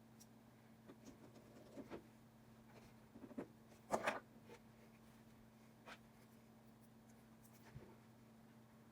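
Faint scattered clicks and scrapes of small repair tools on an iPhone XR during a display replacement, the loudest pair about four seconds in, over a steady low hum.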